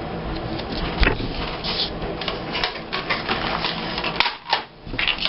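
Paper and scrapbooking materials being handled on a table: an irregular run of quick clicks and taps over rustling paper, quieter for a moment about four seconds in.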